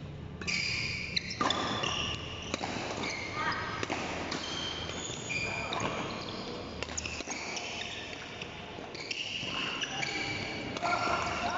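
Doubles badminton rally: several sharp racket hits on the shuttlecock, mixed with short high squeaks of shoes on the court floor.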